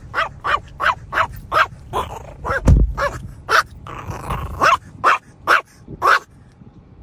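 Chihuahua yapping in a rapid string of short, high barks, about two a second. There is a dull thump about three seconds in, over a low rumble.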